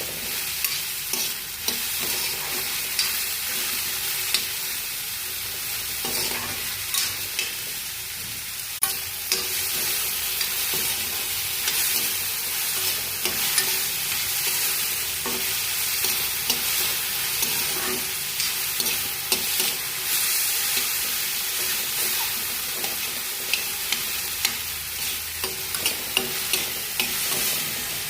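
Food sizzling as it fries in a pan while being stirred, with frequent sharp clicks and scrapes of the utensil against the pan over a steady hiss.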